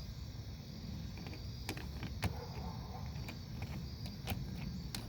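A few scattered sharp clicks and taps of hand tools and metal parts on a car battery cable clamp, over a steady low rumble.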